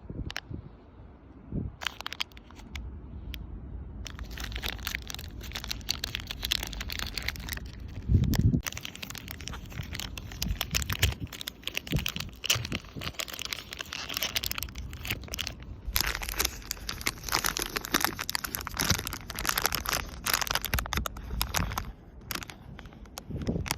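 Plastic wrapper of a Cadbury Dairy Milk chocolate bar crinkling and rustling as it is handled and opened, in dense crackly bursts, with one dull knock about eight seconds in.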